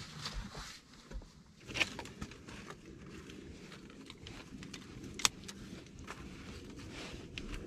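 Dry twigs and tinder handled and laid in an earthen fireplace: light rustling and scraping, with a couple of sharp clicks of sticks knocking or snapping.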